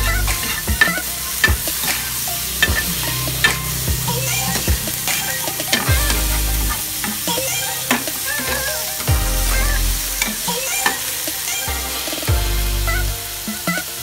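Chicken sizzling as it sautés in a frying pan, stirred with a metal spatula that scrapes and clacks against the pan in frequent sharp clicks. The stirring eases off near the end, leaving mostly the sizzle.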